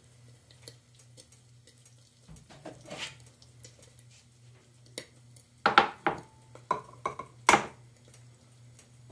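Kitchenware clinking and knocking: a few sharp knocks about six seconds in, one ringing briefly, and a louder knock near seven and a half seconds, over a faint low hum.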